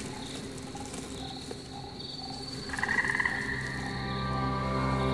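Frogs croaking around a pond, with a trilling call about two and a half seconds in. A low steady drone swells in underneath during the second half.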